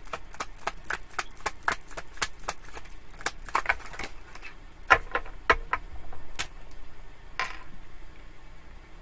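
Tarot cards being shuffled by hand: a quick run of light card clicks, about five a second, then a few separate sharper snaps and a short slide as a card is pulled from the deck.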